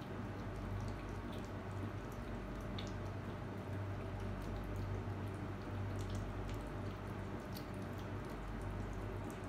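Kittens chewing and lapping wet cat food from paper plates: many small wet clicks and smacks, over a steady low hum.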